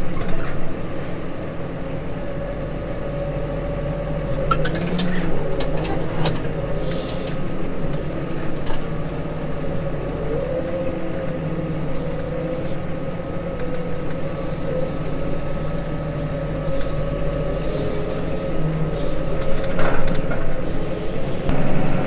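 Case Maxxum 150 tractor's engine running steadily during ploughing, heard from inside the closed cab, with a steady whine over a low hum. A few short knocks come about five seconds in.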